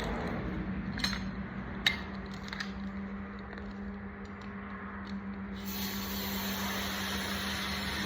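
Compressed air hissing from an inflator into a studded quad tire whose bead has not yet sealed on the rim, with two sharp clicks early on. About halfway through, the hiss turns louder and brighter.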